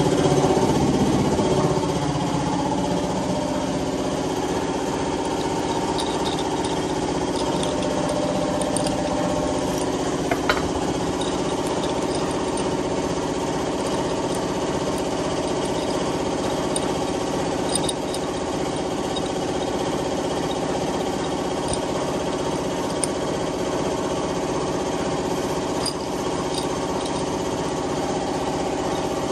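A small motor running steadily with a fast, even throb, and a light click about ten seconds in.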